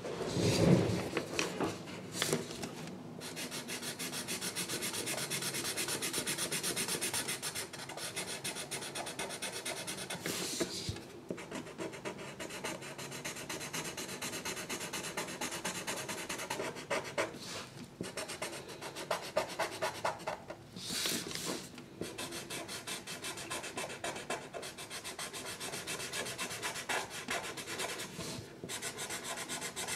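A drawing tool colouring in on paper: rapid back-and-forth scribbling strokes with a few short pauses, and a thump just after the start.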